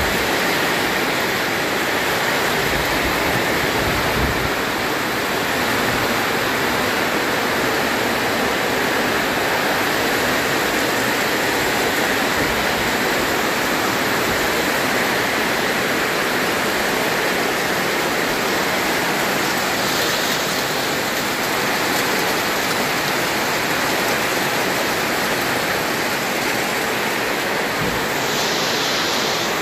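Rain falling steadily on a corrugated metal roof: a dense, even hiss with no let-up.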